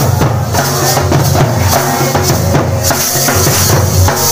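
Loud music with drums and percussion in a steady rhythm.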